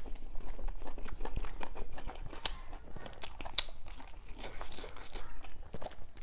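A person eating close to the microphone: wet chewing and biting with many irregular small clicks and smacks, as of mouthfuls of steamed bun being chewed.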